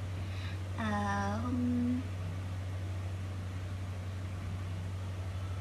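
A woman's brief wordless hum, two short held notes with the second higher, about a second in, over a steady low hum.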